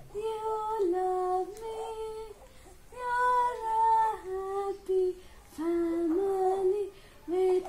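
A woman singing a slow melody without clear words, in short phrases of held notes with brief pauses between them.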